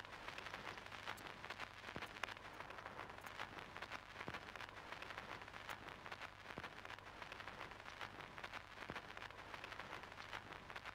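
Faint crackling hiss with many scattered clicks over a steady low hum.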